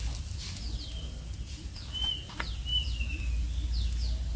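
Birds chirping: a run of short, falling chirps, with two longer whistled notes about two and three seconds in, over a steady low rumble.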